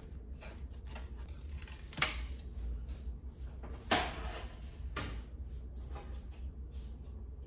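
A few short knocks and clatters of a metal half-sheet pan being picked up and handled, the loudest about four seconds in, over a low steady hum.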